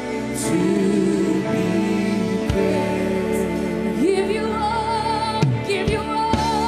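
Live church worship music: sustained keyboard-like chords under a sung melody, with a higher voice singing with vibrato from about four seconds in.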